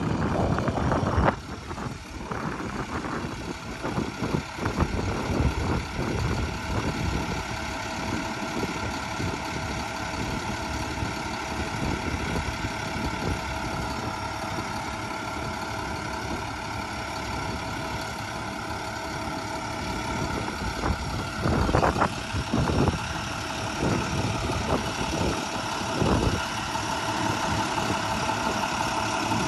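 Truck engine idling steadily, with a few brief knocks or bumps, most of them near the end.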